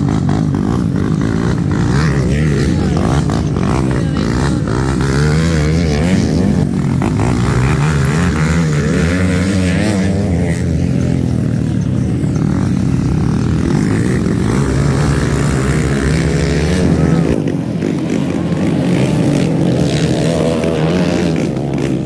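Motocross dirt bikes racing on the track, their engines revving up and down.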